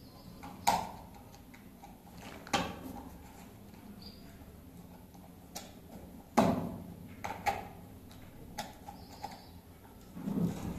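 Scattered sharp clicks and knocks of hand tools on fittings at a wall, about eight spaced irregularly, the loudest a little over six seconds in.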